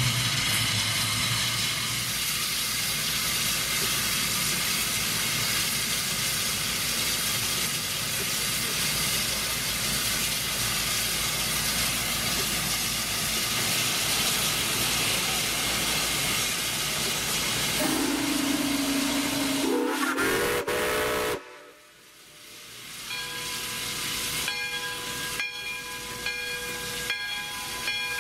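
Steam hissing steadily and loudly from a 1919 Baldwin 4-6-2 Pacific steam locomotive standing with steam up. Near the end a pitched tone rises for a few seconds, then the hiss stops abruptly and fainter steady tones remain.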